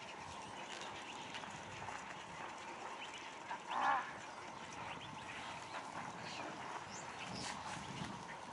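A single short animal call about four seconds in, over a steady outdoor background with faint high chirps.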